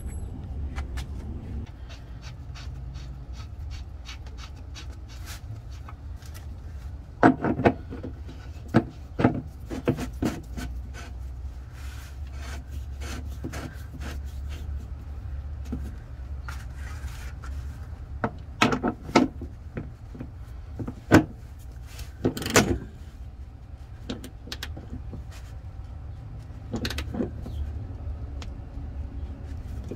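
Hand work on a truck's oil-pan drain adapter: rubbing and handling of the parts with scattered sharp clicks and knocks over a steady low hum. Near the end a run of small quick clicks as a half-inch drive ratchet with a 1.5-inch socket tightens the adapter into the oil pan.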